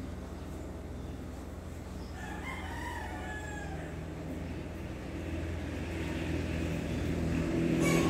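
A rooster crowing once, about two seconds in, over a steady low hum that grows louder over the last few seconds.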